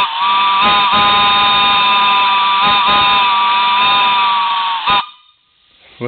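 Small brass three-chime steam whistle blowing on compressed air, its three chambers sounding a loud, steady chord. The chord dips briefly a few times, then gives a short last toot and cuts off abruptly about five seconds in.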